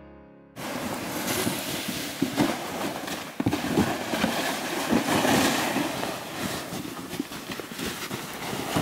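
A piano note dies away. About half a second in, it gives way to rough rushing noise on a handheld camera microphone with irregular crunches and knocks, as people tramp through snow hauling a wood-laden sled.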